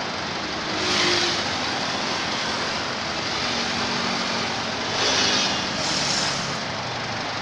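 Steady road traffic noise, swelling louder about a second in and again around five seconds in.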